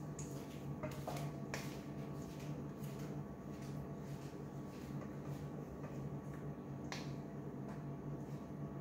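A metal spoon clicking and scraping against a stainless steel mixing bowl as thick cake batter is scraped out into a baking dish. A few sharp clicks, mostly in the first two seconds and one near the end, over a steady low hum.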